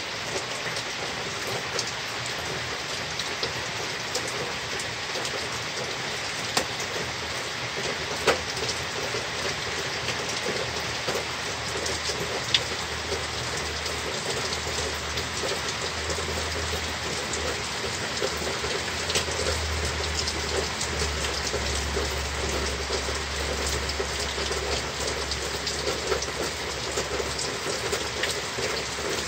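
Heavy rain falling steadily, with a few louder single drops hitting close by.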